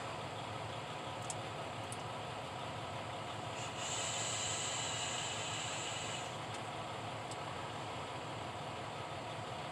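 An electronic vape hissing steadily for about two and a half seconds as it is drawn on, starting about three and a half seconds in, over the steady low hum of an idling vehicle heard inside the cab.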